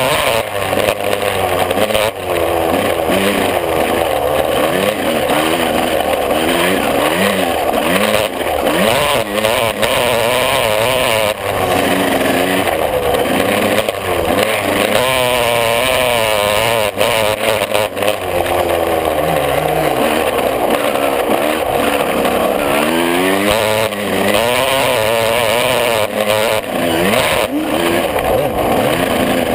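125cc two-stroke motocross bike engine running hard on a dirt track, its pitch rising and falling again and again as the rider accelerates, shifts and backs off through the corners.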